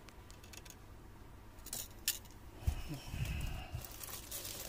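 Plastic-wrapped parcel being picked up and handled: a couple of light clicks, then rustling and low bumps of the plastic mailer from about halfway through.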